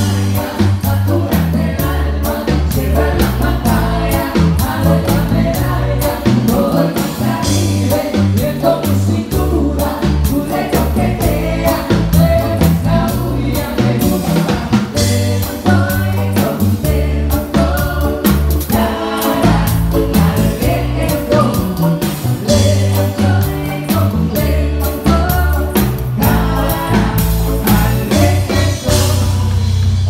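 Live band music, loud and continuous, with a sung vocal over a stepping bass line, keyboards and a drum kit keeping a steady beat.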